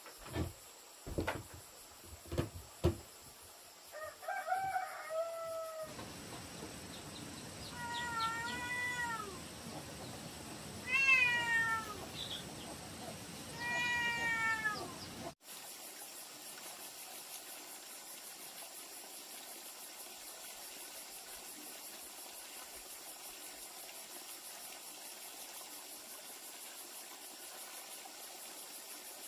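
A domestic cat meowing several times, each meow rising then falling in pitch. A few dull knocks come before the meows, and after them a steady chirring of insects takes over.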